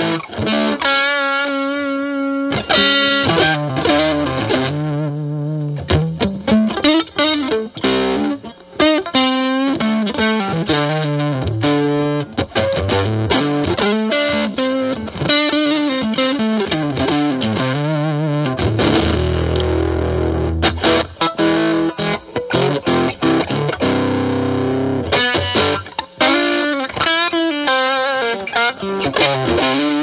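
Electric guitar through an Electro-Harmonix Germanium 4 Big Muff Pi fuzz, set for a classic Big Muff sound, into a Marshall Valvestate amp's clean channel. It plays fuzzy, sustaining single-note lead lines with vibrato on held notes. A low note rings out for a couple of seconds a little past halfway.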